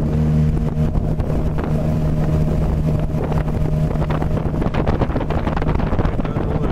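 Outboard motor running steadily at cruising speed, pushing an inflatable boat along, with wind buffeting the microphone.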